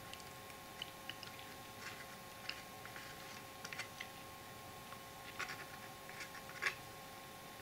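Faint scattered clicks and light handling noises of a plastic squeeze bottle of glue and a card model building being worked in the hands, over a faint steady hum.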